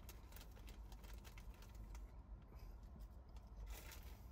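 Faint chewing of crunchy corn-and-chickpea cheese puffs: small irregular crunches and mouth clicks over a low rumble.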